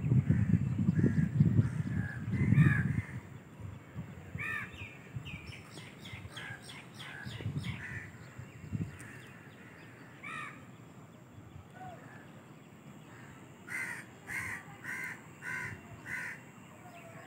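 Crows cawing over and over: a quick run of calls about four to seven seconds in, then five evenly spaced caws near the end. A low rumble is heard during the first three seconds.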